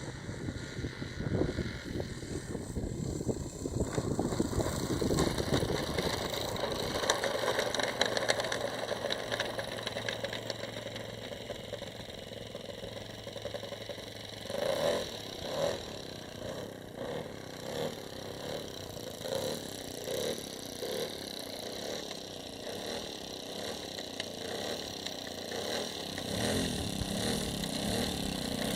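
Model airplane's 1.20 four-stroke glow engine running, louder for the first ten seconds or so, then quieter with a pulsing rhythm.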